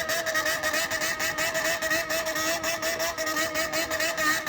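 Honda CBX400F inline-four motorcycle engine held at high revs through a Waltz Kikai exhaust, in a 高回転コール (high-rev call). The throttle is worked so the pitch wavers up and down about three or four times a second.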